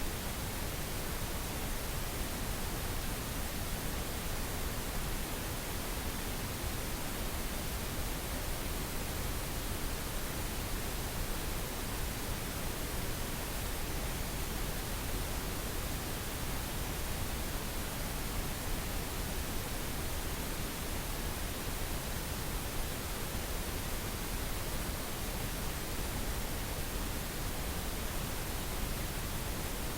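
Synthetic pink noise, a steady, even hiss that does not change.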